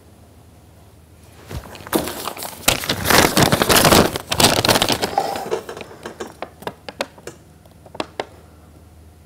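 Paper rustling and crinkling as an envelope is opened and the letter inside pulled out and unfolded, busiest from about two to five seconds in, then a few light crackles as the sheet is handled.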